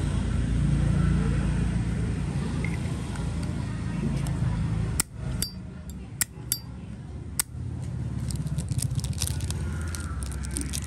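Zippo windproof lighter being handled: the metal lid snapped open and shut in about five sharp metallic clicks, two with a brief ring, followed near the end by a quick run of small clicks and rattles. A low engine rumble runs underneath in the first half.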